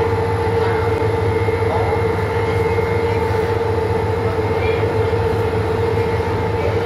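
Sightseeing boat's engine running underway: a steady drone with a constant whine over a low hum.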